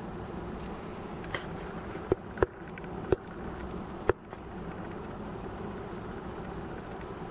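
Steady outdoor background noise with five short, sharp clicks between about one and four seconds in.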